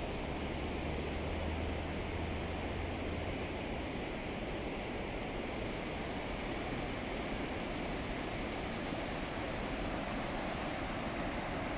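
The Soča river roaring through its gorge below: a steady, even rush of white water. A low rumble sits under it for the first three seconds or so.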